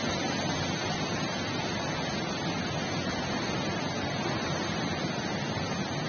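Steady, even rushing noise of a storm, with no separate knocks or voices in it.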